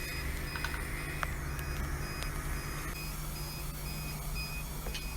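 Ventilation fans and dental-room equipment running with a steady hum. A faint high whine stops about three seconds in, and a soft electronic beep repeats at an even pace throughout.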